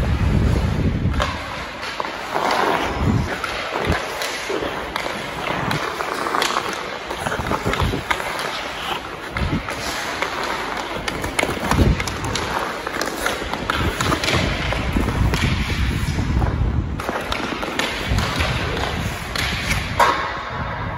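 Ice hockey skates scraping and carving on rink ice, with a stick knocking the puck and repeated thuds and knocks, the loudest about twelve seconds in and near the end.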